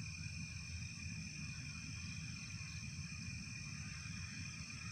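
Steady chorus of night insects, crickets chirring in constant high tones without a break, over a low, uneven rumble.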